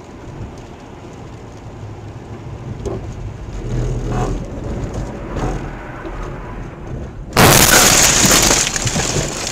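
Car on a wet road heard from inside, with steady tyre and road noise. About seven seconds in comes a sudden, much louder rush of noise lasting about two seconds.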